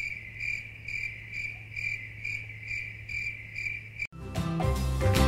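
Cricket chirping sound effect, a steady pulsing chirp about twice a second. It cuts off abruptly about four seconds in, and cheerful music starts.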